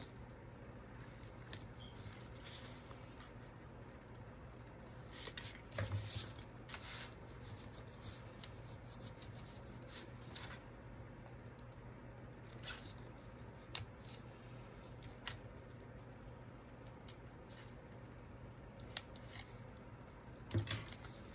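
Faint handling noise of patterned paper and double-sided tape: soft rustles and rubbing as the paper is pressed down, with scattered light clicks and taps, the loudest cluster about six seconds in.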